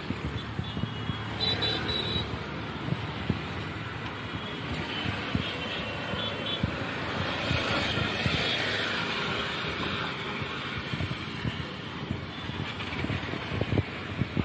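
Road traffic passing close by on a flyover: motor scooters, motorcycles and cars, with tyre hiss on the wet road swelling as a vehicle goes by about eight seconds in. A few brief high-pitched tones sound about a second and a half in and again around five seconds.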